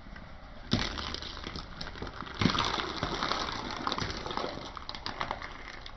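Raw eggs cracking and squashing under a slowly rolling car tyre: a sharp crack about a second in, a louder one a second and a half later, then a run of crackling and squelching as the rest of the shells give way.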